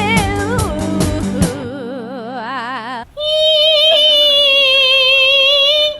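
A woman singing with a wide vibrato over a musical backing, then, after an abrupt cut, holding one long high note for about three seconds.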